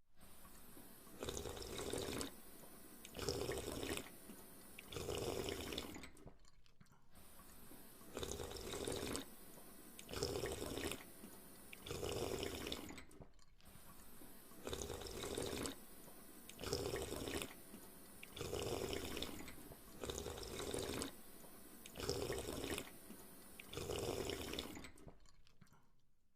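Water gushing in short spurts from a homemade mini hand pump, about a dozen in turn, one with each stroke of the handle, roughly every two seconds.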